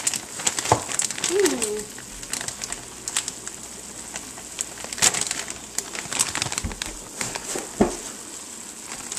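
Ground beef and onion frying in a pan with a steady sizzle, while a plastic bag of thawed frozen spinach is handled and crinkles, giving scattered clicks and rustles. A short sliding hum-like tone sounds about a second and a half in.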